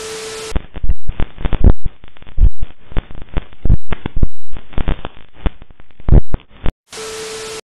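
A short burst of TV-static hiss with a steady beep tone. Then several seconds of loud, distorted crashes and bangs, clipped at full level, from something smashing into a yard. Near the end, a second burst of static with the same beep.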